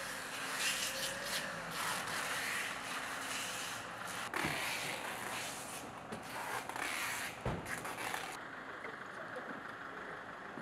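A minibus running at the kerb, a steady rushing noise, with luggage being handled around it: two sharp thumps, one about four seconds in and one about seven and a half seconds in.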